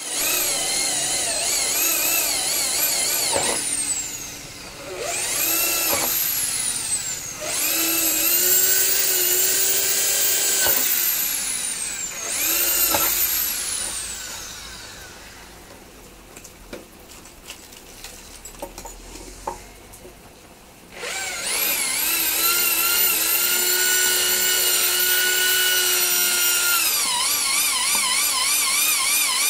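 Electric hand drill boring holes into a wooden board. Its motor whine spins up and winds down in several short runs, then stops for about seven seconds with only a few small knocks. About two-thirds of the way in it starts again and runs steadily.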